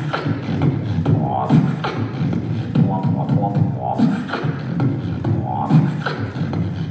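Beatboxing into a handheld microphone: sharp kick- and snare-like mouth hits over a continuous hummed bass, with short higher pitched vocal notes now and then.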